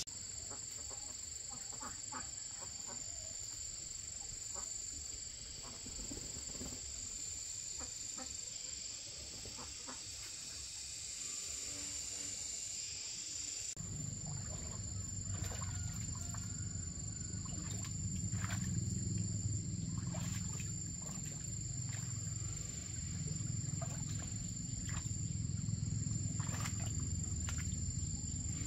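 Insects droning steadily at one high pitch, with scattered clicks and knocks. About halfway through, a low rumble comes in suddenly and carries on underneath.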